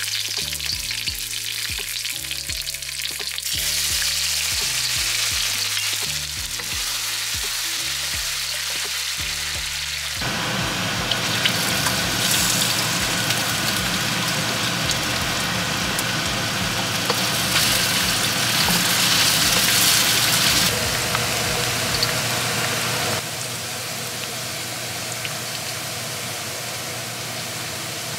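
Hot oil sizzling in a wok as mustard seeds and curry leaves fry for a tadka. The sizzle turns fuller and louder about ten seconds in as chopped potato and onion go into the oil, then eases a little near the end.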